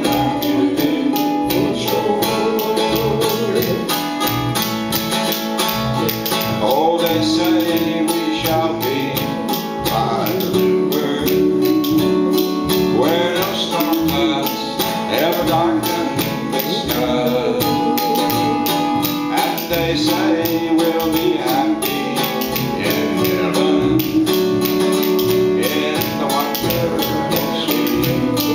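Old-time country song played live: a 1931 Martin plectrum guitar strung and tuned like a baritone ukulele (a "bass ukulele") strummed with a pick, with a washtub bass and a steady clicking beat on spoons under a man's singing.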